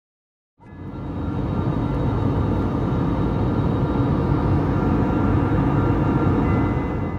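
Airliner cabin noise in flight: the steady, loud, low rush of jet engines and airflow heard from inside the cabin, with a few faint steady whining tones above it. It starts abruptly about half a second in.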